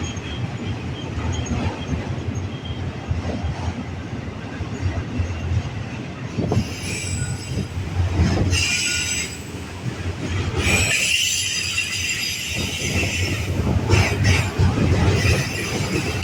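Freight train rolling past with a steady rumble of wheels on rail. High-pitched wheel squeal joins about six seconds in and comes and goes in waves, loudest around the middle and again later.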